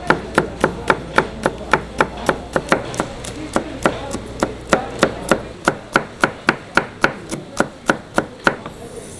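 Kitchen knife chopping chili peppers on a cutting board: an even run of sharp chops, about three a second, that stops shortly before the end.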